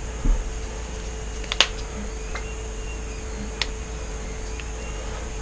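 Steady low electrical hum with a soft thump right at the start and a few short, sharp clicks about one and a half, two and a half and three and a half seconds in.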